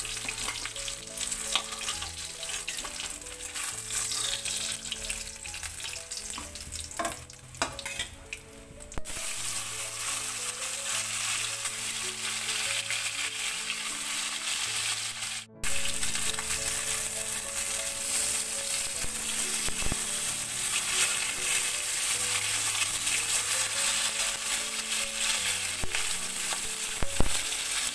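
Silver carp steaks sizzling steadily as they fry in hot oil in a kadai. The sizzle softens for a moment partway through, then comes back louder with a fresh batch of raw pieces in the oil.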